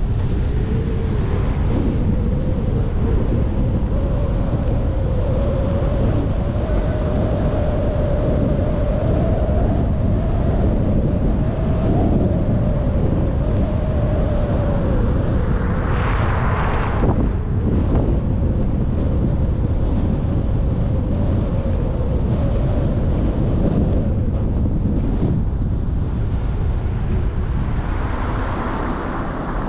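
Car driving, heard from the recording vehicle: steady road and wind rumble with a hum that drifts slightly up and down in pitch. A brief brighter rush comes about sixteen seconds in.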